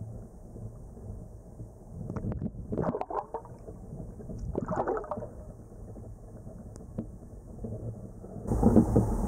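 Muffled water gurgling and sloshing, with two louder surges about two to three seconds in and again around five seconds; near the end a louder, broader rush of noise sets in.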